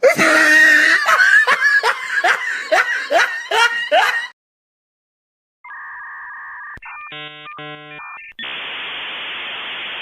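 A run of separate meme sound-effect clips. First a loud, chaotic clip of repeated sharp falling cries, about three a second, which stops abruptly about four seconds in. After a short silence come a steady two-tone electronic beep, a stuttering burst of synthetic tones, and then a steady hiss of static.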